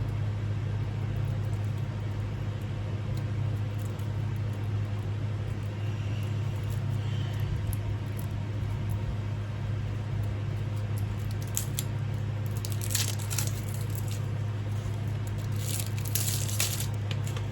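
Packaging crinkling and crackling in short clusters over the last few seconds as parts are taken out of the fan's box, over a steady low hum.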